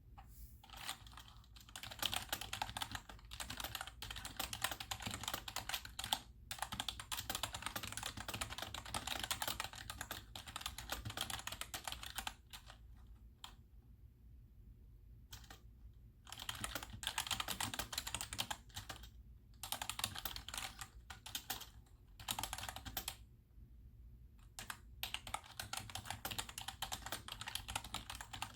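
Fast typing on a cheap GEODMAER 65% membrane keyboard sold as 'mechanical feel', a dense clatter of keystrokes in several runs with short pauses between them.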